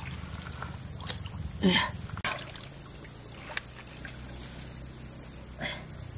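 Steady low hum of a water pump's engine running, with small sloshes and clicks of hands working in shallow muddy water. A short voice-like cry rises and falls about a second and a half in.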